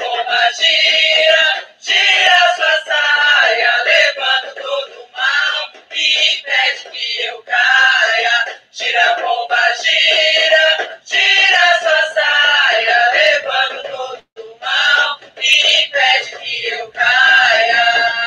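A recorded song plays: voices singing over music, choir-like, in phrases broken by short gaps. The sound is thin, with almost no bass.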